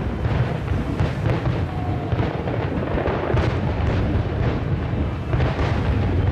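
Japanese aerial firework shells bursting in rapid succession, the booms overlapping into one continuous low rumble.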